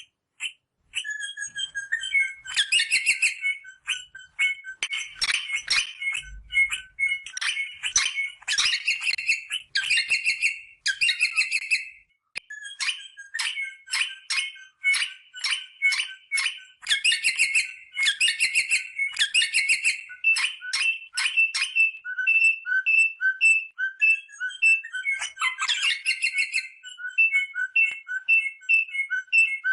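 Rosella parrot calling: rapid runs of short, sharp whistled notes and chatter, with a brief pause about halfway through.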